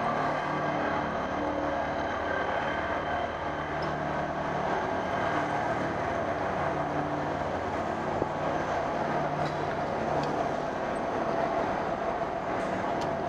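Steady city street noise heard from a slowly moving bicycle: a constant rumble with a steady hum and no single event standing out.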